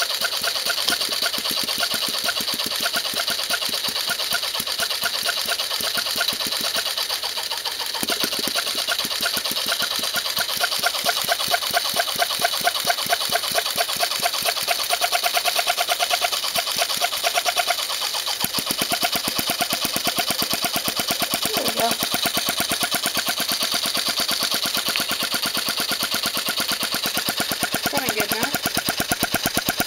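Cox .049 model engine converted to run on compressed air, driven by a small 12-volt piston air compressor: a fast, steady mechanical clatter from the two running together.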